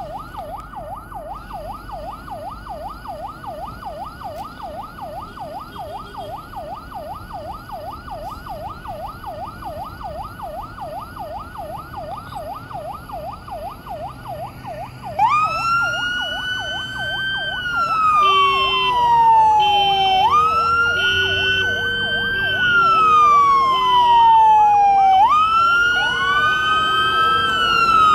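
Emergency-vehicle sirens from a passing fire-truck convoy. First comes a fast warbling yelp, about three or four cycles a second. At about 15 s a much louder wail cuts in, rising quickly and falling slowly over about five seconds before it starts again. Near the end a second wail overlaps it, and a low two-note hi-lo tone alternates beneath.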